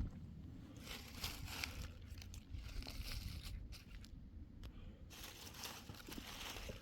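Irregular crunching and crinkling noises in several spells, about a second in, around the middle and near the end, over a steady low rumble.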